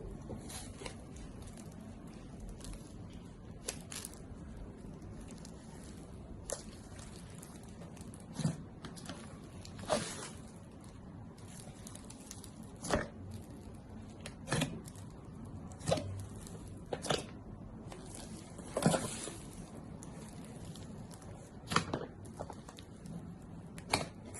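Slime being squished and pressed by hand, giving sharp wet pops and clicks every second or two over a faint steady background noise.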